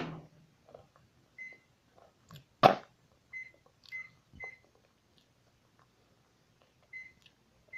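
Close-up chewing of crispy chicken nuggets, with two sharp clicks, one at the start and one about two and a half seconds in. Short high beeps, all at one pitch, come about seven times at uneven gaps over a faint steady hum.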